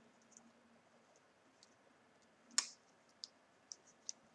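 Plastic action figure's arm joint clicking as it is posed: one sharp click about two and a half seconds in, then three small ticks.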